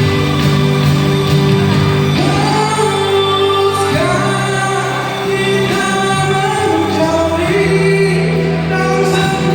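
A woman singing a slow Malay song over recorded backing music, her voice entering about two seconds in with long held notes and vibrato.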